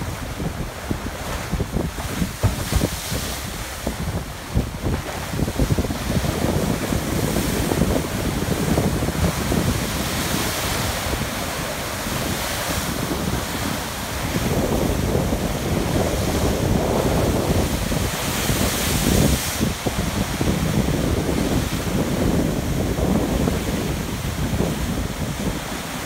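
Ocean surf surging and crashing against dark rock in repeated swells, with foaming water pouring back off the rock ledges. Wind buffets the microphone.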